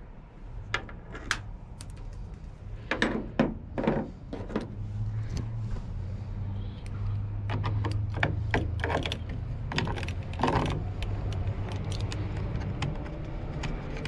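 Metal hand tools and keys clicking and clinking as a screwdriver and locking pliers are worked at the lock bolt on a pickup's fuel door, in short irregular taps with a low steady hum underneath through the middle.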